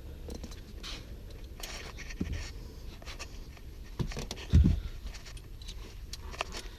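Scattered light clicks and scrapes of hands handling car interior parts, with one dull thump about four and a half seconds in.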